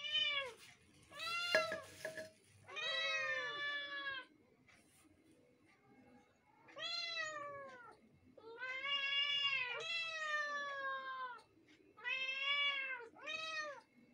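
Two kittens meowing, about seven drawn-out meows in turn, the longest running over two seconds, each falling off in pitch at the end. A brief knock comes about a second and a half in.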